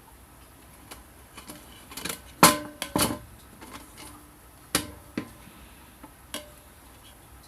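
Metal parts clinking and clanking against each other as they are handled, a cluster of sharp knocks with a brief metallic ring about halfway through, then a few single knocks.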